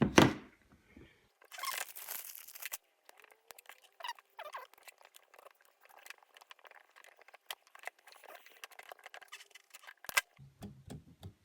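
Hand work on a printer's timing belt: a sharp snip right at the start as the spare belt is cut, a short rustle about two seconds in, then many small scattered clicks and taps as the belt and parts are handled and fitted over the pulleys.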